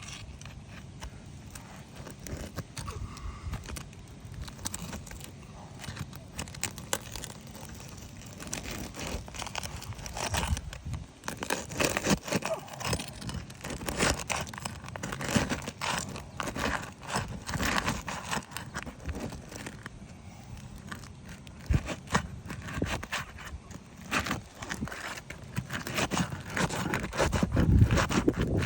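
Roof shingles being pried up and worked with a shingle-removal tool and roofing hammer: irregular scraping, crackling and tearing, busier after the first several seconds. The shingles tear as they are lifted.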